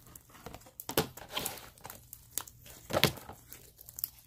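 Hands squishing and stretching slime: crackly, wet squelching with two louder pops, about a second in and about three seconds in.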